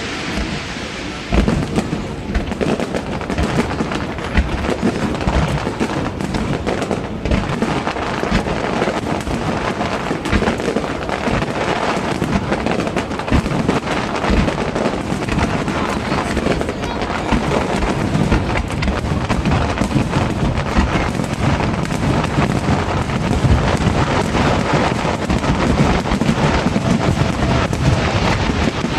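Fireworks display: a dense, nearly continuous run of bangs and crackles, with people's voices underneath.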